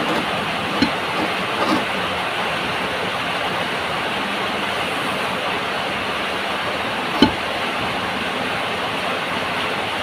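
Heavy rain, a steady loud hiss of downpour. A few short knocks sound over it, the loudest about seven seconds in.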